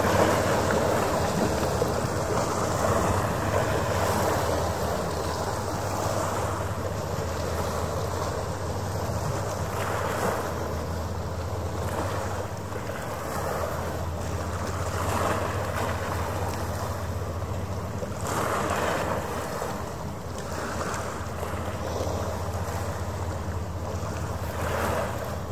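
Harbour water washing against the shore in slow, irregular swells, over a steady low hum.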